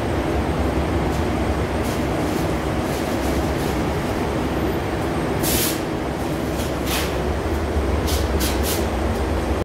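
Paint booth air-handling fans running with a steady, loud rumble. From about halfway through, short hisses of compressed air from a spray gun cut in, one longer and then several quick ones near the end.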